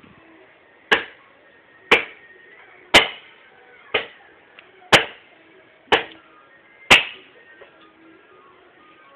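Axe chopping into wood: seven sharp blows about a second apart, each dying away quickly.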